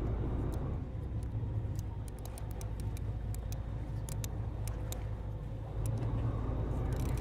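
Low, steady rumble of the sportfishing boat's engines, with irregular light clicks and ticks over it.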